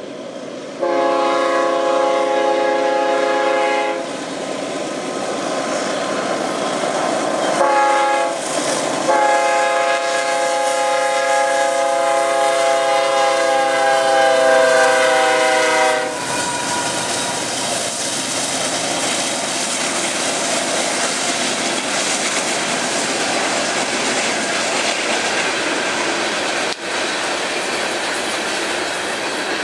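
BNSF diesel locomotive's horn sounding for a grade crossing: a long blast, a short one, then a long blast that drops slightly in pitch as the engine passes. The horn gives way to the steady rolling noise and clickety-clack of coal hopper cars going by, with one sharp clack near the end.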